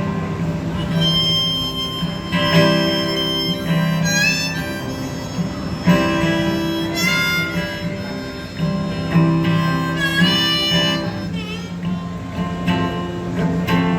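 A country-folk band's instrumental break: a lead melody with bent, sliding notes over guitar accompaniment, with no singing.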